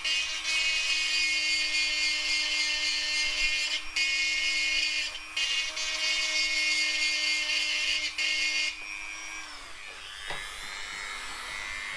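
Dremel rotary tool running at high speed with a round burr bit, grinding to key the surface of a broken cylinder-head lug. The grinding noise breaks off briefly twice, and about three-quarters of the way through the motor's whine falls in pitch as it winds down.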